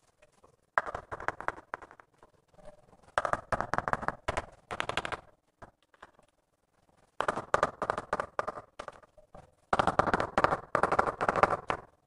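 Rapid tapping of a mallet on a ceramic wall tile to bed it into the adhesive, in four bursts of quick knocks with short pauses between.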